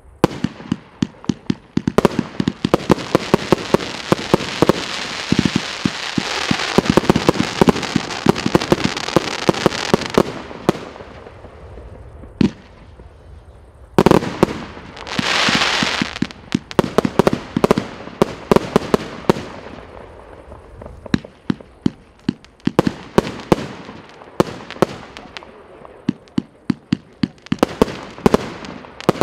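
Multi-shot firework cake firing a rapid volley of shots: many sharp bangs over a thick crackle for the first ten seconds or so, easing off. About fourteen seconds in comes a loud bang and a two-second hiss, then more scattered bangs.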